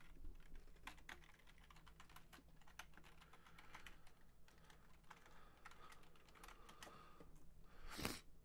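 Faint typing on a computer keyboard: an irregular run of soft key clicks, with one slightly louder, brief sound near the end.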